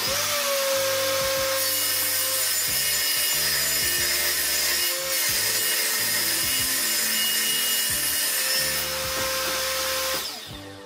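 Table saw ripping a thin strip off a plywood board: a loud, steady cutting noise that ends about ten seconds in as the cut finishes.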